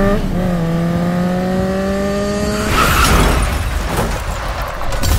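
Motorbike engine accelerating, its pitch climbing steadily with a brief dip for a gear change, then cut off about three seconds in by a sudden, noisy crash. Another sharp hit comes near the end.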